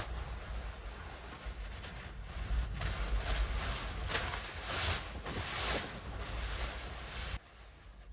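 Gusty wind blowing against the microphone, a low rumble with surges of rushing noise, which cuts off suddenly about seven seconds in.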